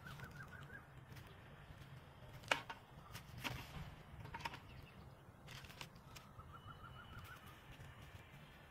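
A small knife cutting and peeling a red onion on a bamboo cutting board: a few sharp cuts and taps, the loudest about two and a half seconds in. A bird trills twice faintly in the background, near the start and again later.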